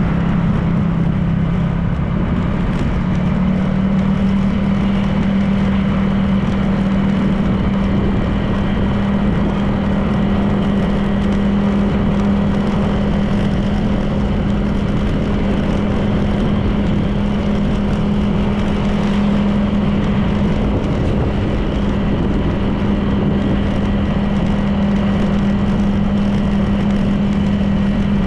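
Honda PCX 160 scooter's single-cylinder engine running at a steady cruising speed, with road and wind noise. The engine note rises a little a few seconds in, then holds steady.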